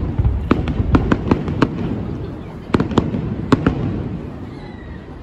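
Aerial firework shells bursting: a quick string of sharp bangs and cracks over a low rumble, in two clusters, then the rumble dies away near the end.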